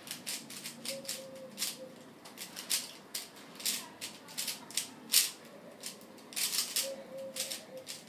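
3x3 Rubik's Cube being turned rapidly during a speedsolve: quick, irregular clacking of the plastic layers, coming in clusters of turns with brief pauses between them.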